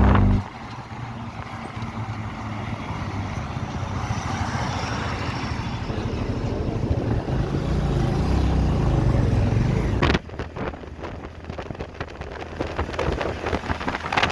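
Motorcycle riding on the road: engine running under a steady rush of wind and road noise. The sound changes abruptly about ten seconds in to a choppier, gustier noise.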